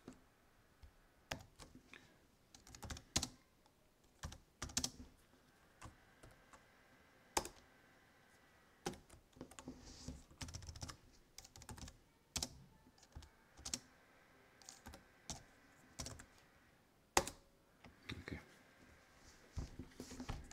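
Typing on a computer keyboard: irregular key clicks in quick runs with short pauses between, a few keystrokes sharper than the rest.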